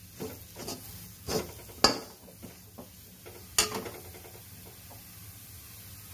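Metal slotted spatula stirring methi leaves and gram flour in a kadai, scraping and knocking against the pan in several strokes over the first few seconds, the loudest about two seconds in. After that there is only a faint steady hiss.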